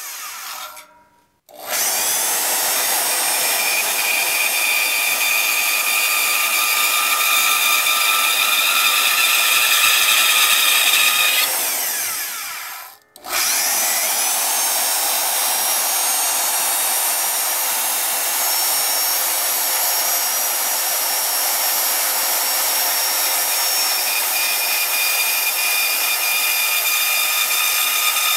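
Milwaukee Heavy-Duty corded power saw cutting aluminium angle stock, a steady loud run with a high whine. It winds down and stops about a second in, starts again, winds down and stops briefly a little before halfway, then starts once more and runs on.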